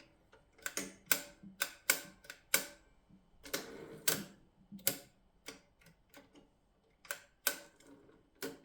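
Mercedes Model 6 manual typewriter being worked: irregular sharp clicks and clacks of its keys and carriage as tab stops are set, with a short rasping slide about three and a half seconds in.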